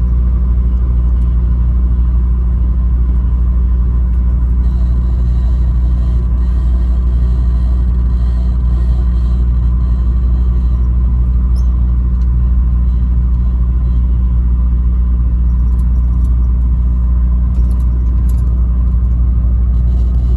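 Steady low rumble of a motor vehicle driving, engine and road noise with no change in level. The truck horn is not sounded.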